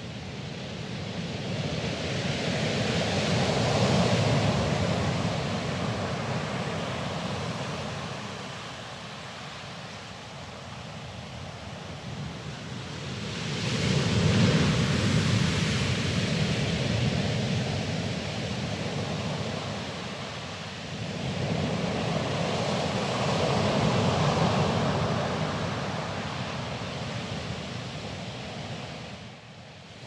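Sea waves breaking over a pebble beach: three swells of surf, each rising to a crash and then washing back and fading.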